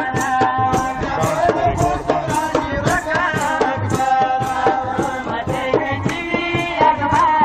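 Shia matam procession music (matam saaz): a steady beat of strikes about two to three a second, with a wavering melody line over it.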